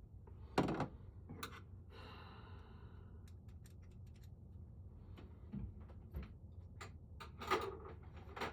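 Screwdriver and metal lock parts of a lever handle being worked by hand: scattered clicks and knocks, with a sharp knock about half a second in, a short scrape a couple of seconds in, and a quick run of clicks near the end.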